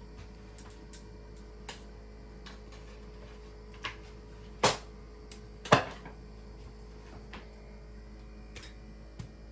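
Scattered light clicks and ticks in a kitchen over a steady low hum, with two louder sharp knocks about a second apart midway through.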